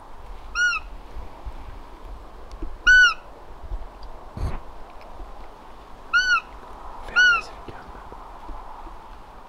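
Buttolo roe deer call sounded in four short fieps, each a brief high squeak rising then falling in pitch, imitating a roe doe to draw in a rutting buck. A single soft thump about halfway through, over a low rumble.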